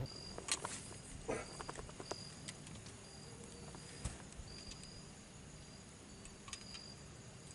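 Insects chirping, a short high chirp repeating about twice a second over a faint steady high drone, with scattered sharp clicks and knocks.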